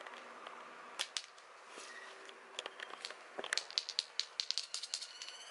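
Kitten wrestling a toy mouse on a laminate floor: a few sharp clicks about a second in, then a quick run of clicks and taps from its claws and the toy knocking on the floor over the last two seconds.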